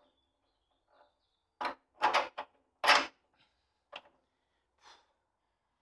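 Steel leaf-spring shackle plates and bolt on a Land Rover Series 2 clanking and clinking as they are handled into place at the spring eye. There are about half a dozen short metallic knocks, loudest around two and three seconds in.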